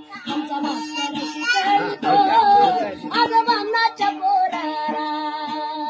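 A woman singing a Marathi devotional folk song in a high voice, with long, wavering held notes, over a steady drone and regular plucks of an ektara, a one-string folk lute.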